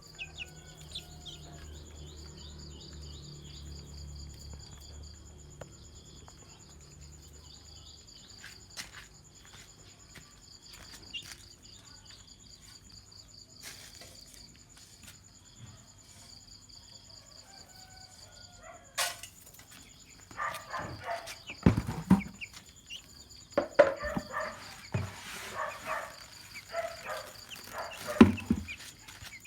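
A hen and chicks: faint, rapid high-pitched chirping at first, then from about twenty seconds in louder, repeated clucking calls, with a few low knocks.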